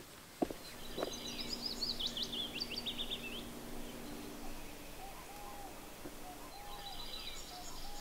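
Songbird singing a fast, high twittering phrase about a second in, and again near the end, over quiet marsh ambience. In the second half, a lower call repeats a short arched note about every half second.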